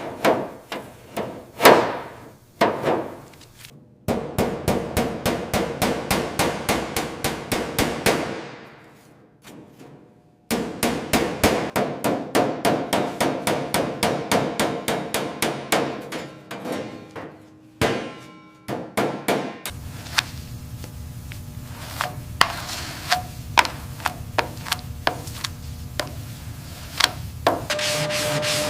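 A hammer striking metal in quick runs of ringing blows, about four a second, with short breaks between runs. Near the end the blows thin out to occasional taps over a steady low hiss.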